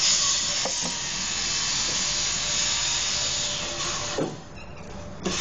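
Electric drill running steadily while boring a hole for a 5/8-inch anchor bolt. It stops about four seconds in, followed by a few light knocks.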